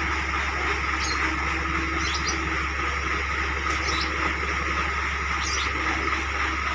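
A diesel engine running steadily with a continuous low hum, with short high chirps heard about five times.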